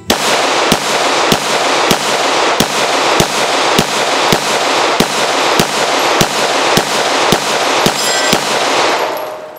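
Glock 9mm pistol fired in a rapid, even string of about fourteen shots, a little under two a second, each shot echoing. A brief high metallic ring follows the last shot near the end, then the echo dies away.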